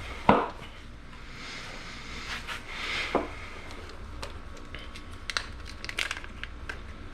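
Hand work on engine parts: a sharp knock near the start, a rustling hiss for a couple of seconds, a second knock, then a few small clicks and taps.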